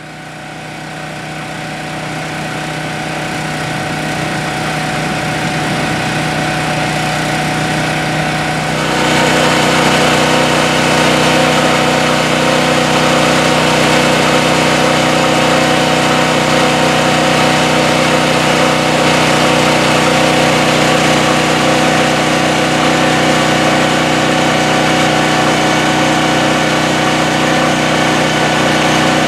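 An engine running steadily while a seed tender's conveyor loads wheat seed into an air drill cart. The sound swells over the first few seconds. About nine seconds in it steps up, louder and fuller, with a rushing hiss added, and then holds steady.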